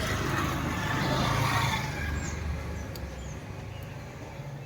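Motor vehicle running, its sound swelling over the first couple of seconds and then slowly fading, with a few faint bird chirps.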